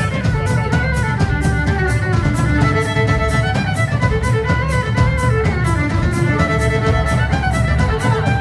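Music: a fiddle playing a melody over a steady, quick drum beat, with guitar and bass underneath.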